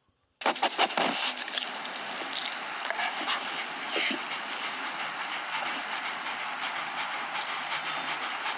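A puppy sniffing right at the camera's microphone: a steady, close, breathy rustling noise, after a few loud knocks against the camera about a second in.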